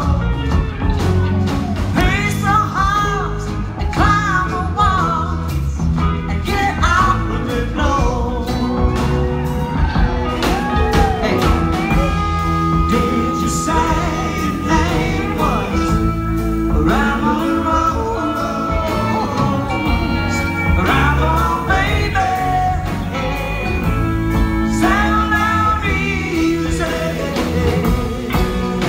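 Live country-rock band playing electric guitars, bass and drums, with singing over the band.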